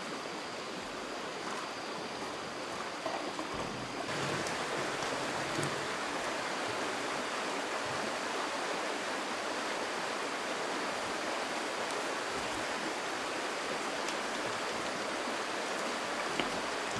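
Steady rush of flowing water, a little louder from about four seconds in.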